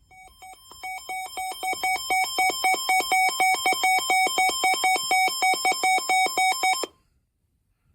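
Electronic emergency alert tone beeping rapidly at about five pulses a second, each pulse a chord of several pitches. It fades in over the first couple of seconds, holds steady, then cuts off abruptly about seven seconds in, as it would between alerts in an Emergency Alert System broadcast.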